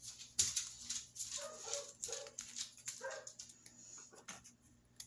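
A dog whimpering in several short, pitched whines, a cluster about a second and a half in and another about three seconds in. Small clicks and rustles of craft materials being handled sound around them.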